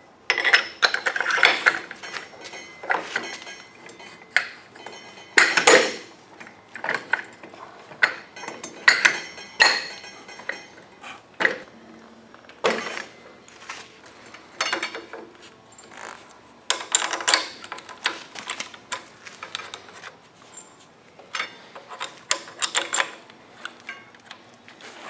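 Metal parts and hand tools clinking and clanking irregularly as a motorcycle front wheel hub, floating brake rotor and four-piston caliper are fitted to the forks, each knock ringing briefly.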